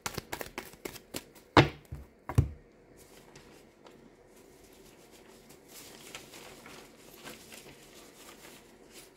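Tarot cards being shuffled and handled: a quick run of card clicks, two louder taps about a second and a half and two and a half seconds in, then faint rustling.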